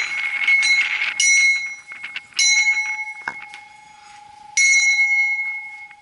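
A small bell struck four times, each stroke ringing out and fading, with a steady ringing tone carrying on between strokes.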